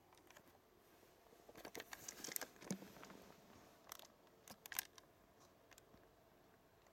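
Near silence: quiet room tone with a few faint, short clicks and rustles, a cluster about a second and a half in and another around four seconds in.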